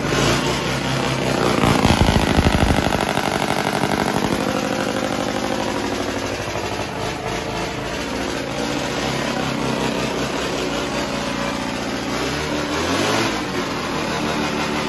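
GMC van engine firing up on its first start after new spark plugs and an oil change. It revs up briefly about two seconds in, then settles into a steady idle, starting and running well.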